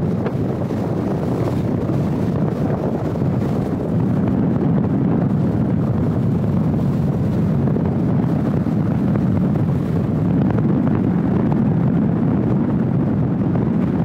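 Steady rush of wind over the microphone of a camera held outside a moving car, mixed with the car's road noise; it gets a little louder about four seconds in.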